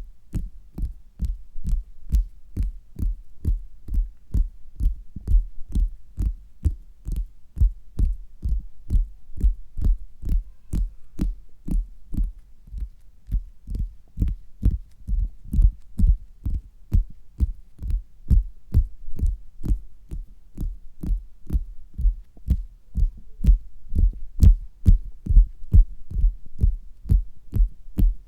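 Fingers tapping on a bare stomach, heard through a stethoscope: a steady run of dull, low thuds, about two or three a second.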